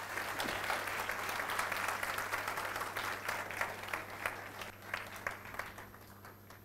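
Audience applauding, the clapping thinning out and fading away over the last second or two.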